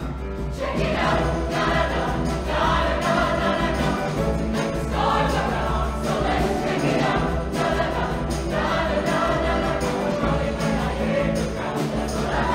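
Show choir singing in unison over band accompaniment with a strong, steady bass.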